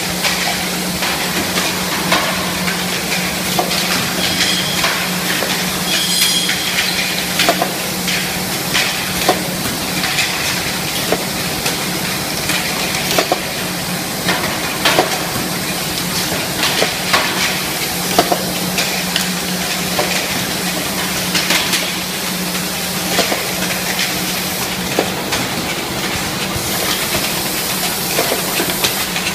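Automatic filling and capping machine running: a steady machine hum under constant clatter, with irregular sharp metallic clicks and knocks from its mechanism and the containers moving through it.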